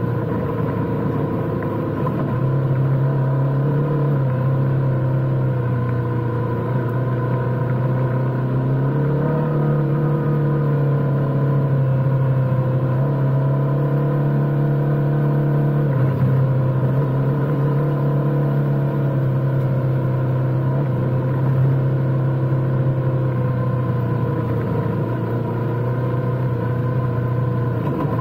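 Adventure motorcycle engine running steadily as the bike rides along a dirt road, its pitch shifting up and down a few times with the throttle.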